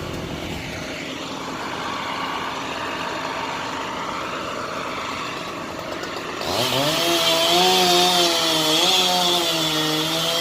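Steady machine noise, then about six and a half seconds in a chainsaw is revved up and held at high speed, its pitch wavering slightly.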